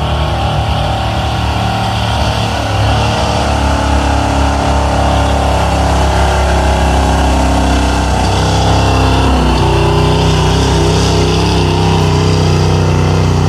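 Gas pickup truck engine running hard at high revs under load as it pulls a weight-transfer sled, loud and steady. The engine note shifts about two-thirds of the way through.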